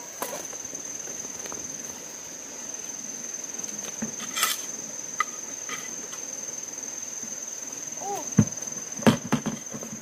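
Insects trilling in one steady high-pitched note, with a few sharp knocks about halfway through and near the end.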